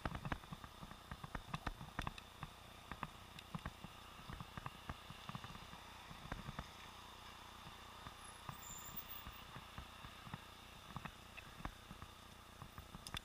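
Faint, muffled irregular clicks and knocks from a helmet-mounted camera sealed in an underwater housing, jostled as the bike rides, over a steady low hiss; the sealed housing blocks most outside sound.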